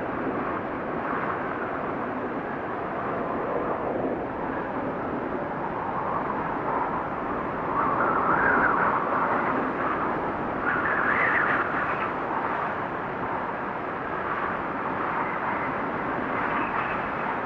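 Blizzard wind blowing steadily, in gusts that swell louder about eight seconds in and again about three seconds later.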